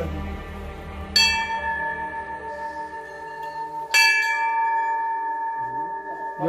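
A temple bell struck twice, about three seconds apart, each strike ringing on long.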